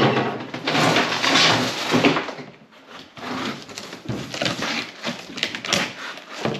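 Plastic-wrapped cardboard box being handled: crinkling plastic and rubbing cardboard for the first couple of seconds, then a series of small knocks and scuffs.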